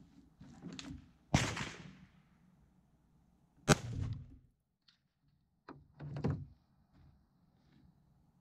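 Two rifle shots from a mil-spec AR-15 fitted with a standard birdcage flash hider, about two and a half seconds apart, each followed by a short echo. A softer knock and clatter follows about six seconds in.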